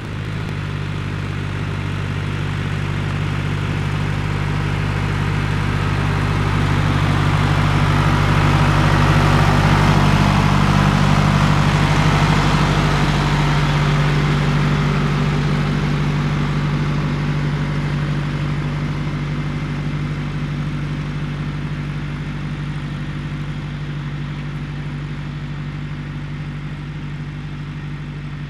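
John Deere tractor's diesel engine pulling a Krone stubble plough through the field: a steady engine drone that grows louder as it passes, at its loudest about a third of the way in, then fades as it works away.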